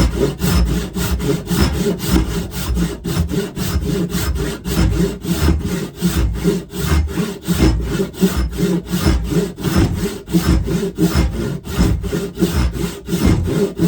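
Hand saw cutting the wedge kerf down into the top of a wooden axe handle, in quick, even back-and-forth strokes, about three a second, that stop suddenly at the end.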